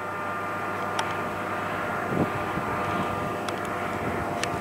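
Jet engines of a distant formation of fighter jets: a steady rushing rumble with a faint high whine, slowly growing louder.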